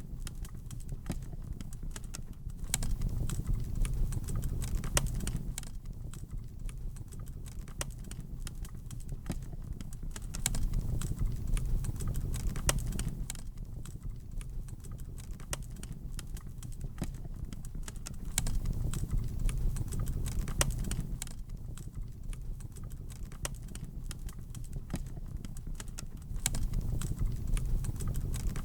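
Wood fire burning in a fireplace, with dense irregular crackles and pops over a low rumble of the flames. The rumble swells and fades about every eight seconds.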